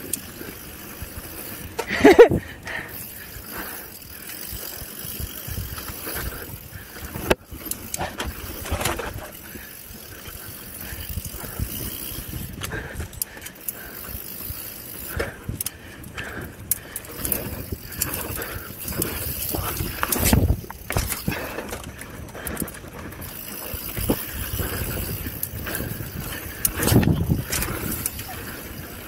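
Mountain bike ridden fast over a dirt trail, heard from a camera on the rider: a steady rush of tyre and wind noise with the bike rattling and knocking over bumps, with a few louder jolts, the loudest about two seconds in.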